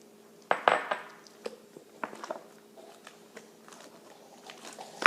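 A spoon clinking and scraping against a bowl as slime is stirred: a loud clink about half a second in, then a scatter of smaller knocks and taps.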